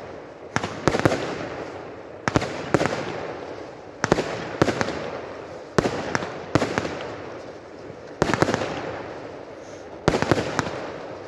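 Fireworks display: aerial shells bursting with sharp bangs, mostly in pairs about every one and a half to two seconds, each bang trailing off in a long fading echo.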